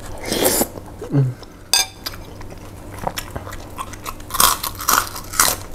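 Slurping a forkful of noodles near the start, then biting into and crunching crisp fried crackers, with a run of sharp crunches in the second half.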